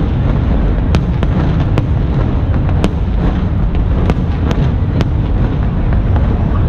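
Aerial fireworks display: a continuous low rumble of shell bursts with sharp cracks scattered irregularly through it.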